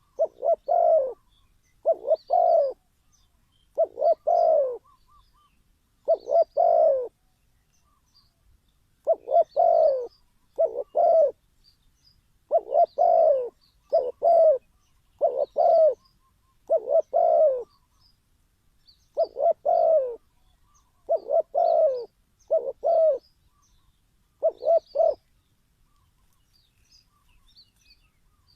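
Spotted dove cooing: a long series of short coo phrases, about one every one to two seconds, each made of a couple of quick notes.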